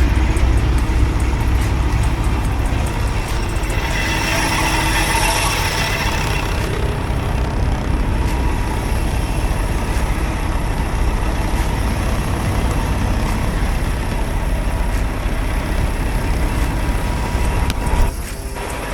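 Steady low rumble of a semi truck, with a brief rushing, hissing swell about four seconds in that lasts around two seconds.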